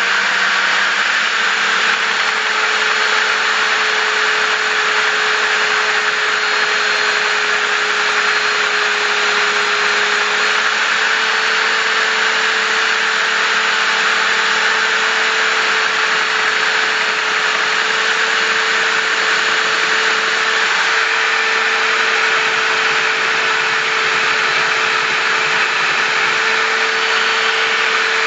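Einhell RT-BS 75 electric belt sander running steadily at a constant speed, with an even motor hum under the belt noise.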